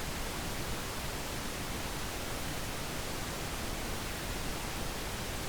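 Steady hiss with no other sound: the noise floor of a JTS TK600 dynamic microphone recorded straight into a Zoom H1n with the gain turned up.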